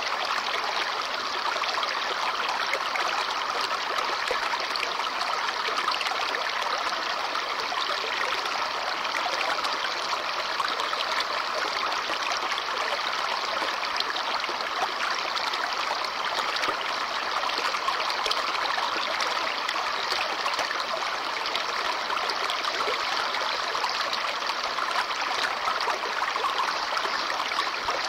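Babbling brook: shallow stream water trickling and burbling over stones, steady and unbroken.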